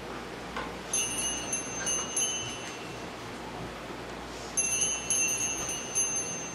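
Small altar bells (sanctus bells) rung in two short peals, one about a second in and another about four and a half seconds in. Each peal is a few quick shakes with a bright, ringing tone, as at the elevation during the consecration.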